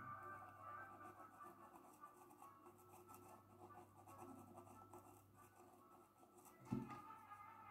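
Faint, soft strokes of a small paintbrush dabbing paint onto canvas, with a soft knock near the end.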